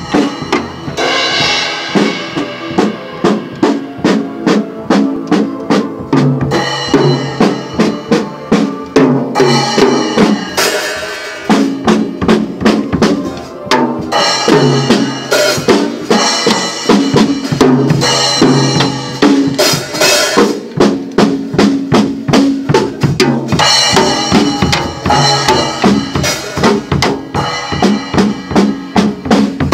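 Acoustic drum kit played to a steady beat on kick drum, snare and cymbals, over backing music with held pitched notes that change every few seconds.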